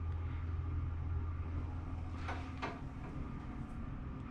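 Two quick knocks, like plastic parts of a disassembled drum washing machine being handled, over a steady low hum that fades out after the knocks.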